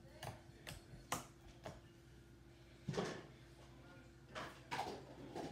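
Faint scattered knocks and clicks of things being moved about, with a louder thump about three seconds in.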